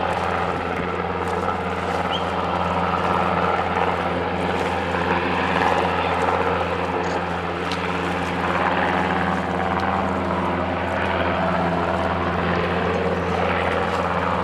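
Helicopter hovering low over the sea: a steady, unbroken drone of rotor and engines.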